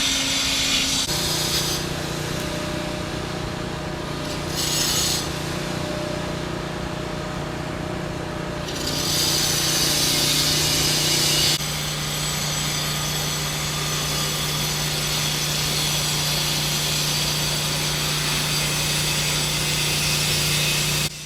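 Power tools running on a construction site: a steady low machine hum throughout, with bursts of harsh, high-pitched cutting noise that come and go before running on steadily through the second half.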